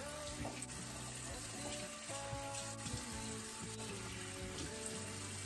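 Bathroom sink tap running in a steady hiss as wet hair is held under the stream, with soft background music underneath.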